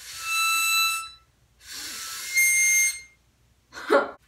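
Two high, breathy notes blown on a tiny mini harmonica, each about a second long, the second jumping higher partway through. A short breathy vocal sound follows near the end.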